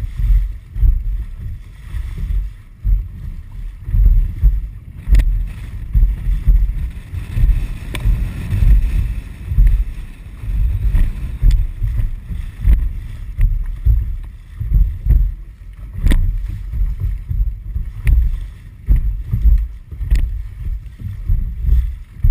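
Wind buffeting the microphone in uneven gusts of low rumble, over the wash of water along a dragon boat's hull as the crew paddles, with occasional sharp knocks.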